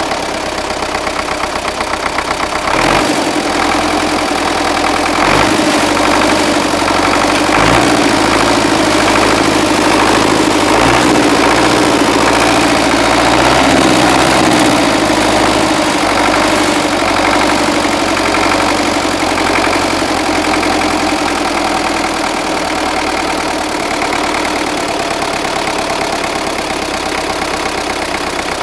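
MTZ-80 tractor's four-cylinder diesel running, its revs raised and varied for about the first half, then eased back to a steadier speed. It has a knock at medium revs that appeared after the injection pump and injectors were repaired, is barely there when the engine is cold, and was not changed by retarding the injection timing; the owner does not know the cause.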